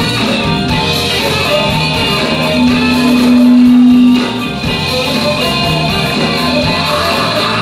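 Live soul band playing an instrumental groove with electric guitars, bass guitar and drums, and one loud held note for about a second and a half near the middle.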